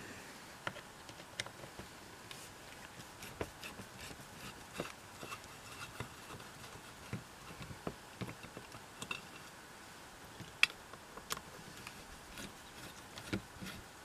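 Small screwdriver working on a metal door latch plate: scattered light clicks and taps of metal on metal, with one sharper click about two-thirds of the way through.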